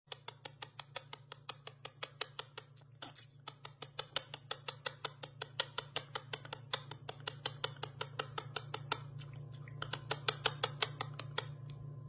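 Rapid, regular clicking, about five clicks a second, from a large green parakeet feeding a chick beak to beak. A steady low hum runs under it.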